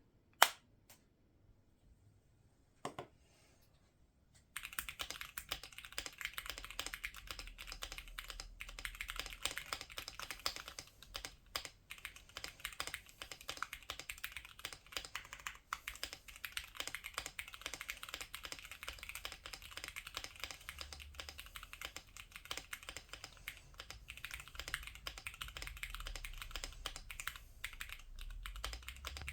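Typing on a Cidoo V75 Pro mechanical keyboard with stock Cherry MX Purple switches on a polycarbonate plate, fully foamed. Two single keystrokes, then fast continuous typing from about four and a half seconds in.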